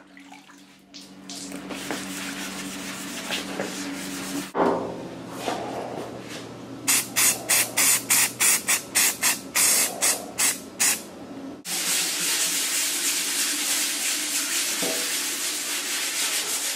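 Hand sanding of a primed body panel with a sanding block and 400-grit sandpaper: a steady scratchy rasp, with a run of quick back-and-forth strokes in the middle, about three a second. The sound changes abruptly twice.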